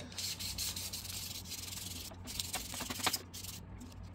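Fine 1500-grit sandpaper on a hand sanding block rubbed back and forth over a resin 3D-printed pattern, a soft scratchy hiss that breaks off briefly a few times in the second half.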